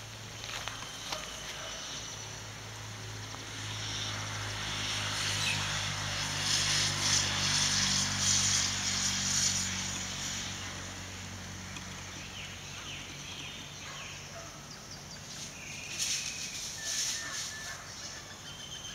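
Low engine hum of a motor vehicle that grows louder toward the middle and then fades, as if passing by. A few short bird chirps come near the end.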